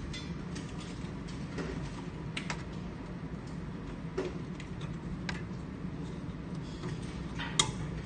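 Scattered small plastic clicks and taps as wires are pushed into slotted plastic wiring duct and the duct is handled, irregularly spaced, with the sharpest click near the end. A steady low hum runs underneath.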